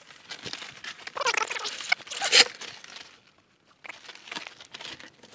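Rustling and scuffing from handling and carrying a prehung entry door, with feet shuffling, and a louder rustle a little over two seconds in.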